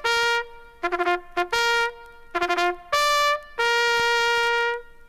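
Bugle call played on a single brass bugle: short notes that leap between a few fixed bugle tones, then a longer held final note that stops a little before five seconds in.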